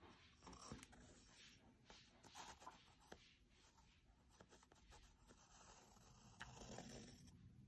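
Faint scratching of a pencil on paper as it traces around the edge of a paper stencil, in short irregular strokes.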